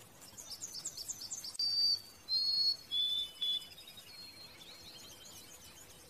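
A small songbird singing: a rapid high trill, then a few clear, loud whistled notes, then a fainter trill.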